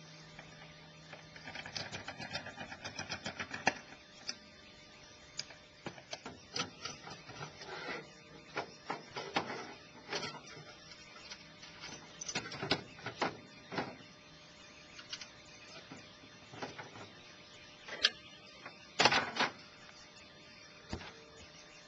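Irregular clicks, knocks and rattles of the tray-top camper's compartment doors and latches being worked, played at double speed. A fast rattling run comes in the first few seconds, and a louder knock near the end.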